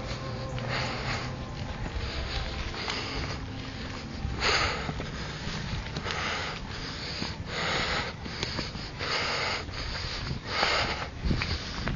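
A person breathing hard close to the microphone, about one loud breath a second and stronger from about four seconds in: out of breath from walking up a steep hill.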